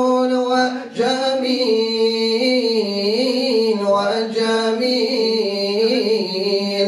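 Men's voices singing an Arabic devotional nasheed together without instruments, drawing out long sliding notes with no clear words, and a short break for breath about a second in.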